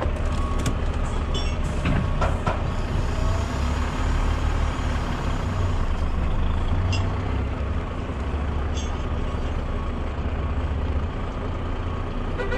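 Truck engine running with a steady low drone, with a few short clicks and knocks. The engine is kept running during loading to hold up the air pressure.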